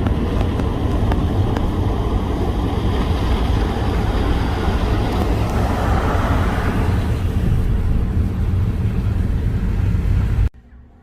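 Car road noise heard from inside the cabin while driving: a steady low rumble of tyres and engine. It cuts off abruptly just before the end.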